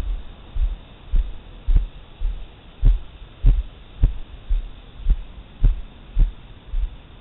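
Footsteps of a person walking, picked up through a helmet-mounted camera as a steady run of dull low thuds, about two a second.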